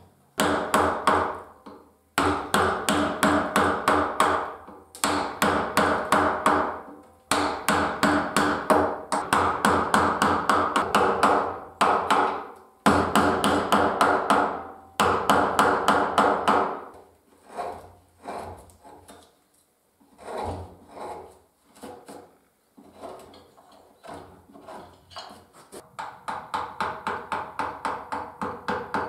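Round wooden carver's mallet tapping a carving gouge into cherry wood in quick, light strokes, several a second, in runs of about two seconds with short pauses. The tapping thins out and fades in the middle, then picks up again as a steady run of about four taps a second near the end.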